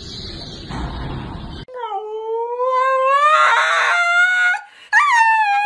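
Husky howling: a long drawn-out howl that slowly rises in pitch begins about a second and a half in, and after a brief break a second howl starts with a sharp high note and drops to a steady tone.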